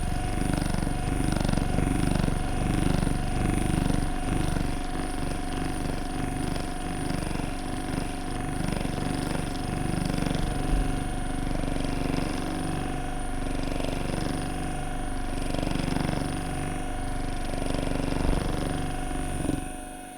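Handheld percussion massage gun running, pressed into a shoulder: a steady motor hum with a fast, rumbling vibration that stops just before the end.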